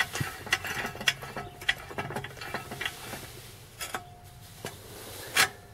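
Metal clicks and clunks from the movable parts of a homemade metal cut-off saw being set by hand to a different cutting angle, with a short ringing note a little past the middle and a louder clank near the end.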